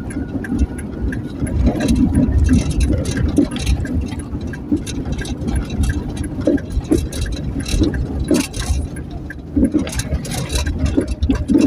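A motor vehicle running, heard as a steady low rumble with frequent short knocks and rattles; no siren sounds.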